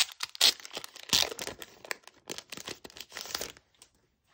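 Crinkling and rustling of packaging handled by hand as the postcards are taken out of the box set, with a few sharp crackles, stopping about three and a half seconds in.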